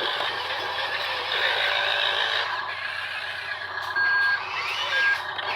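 Electric motors and gears of radio-controlled toy construction trucks whining, the pitch sliding up and down as they drive. Two short electronic beeps come near the end: a longer one about four seconds in and a brief one a second later.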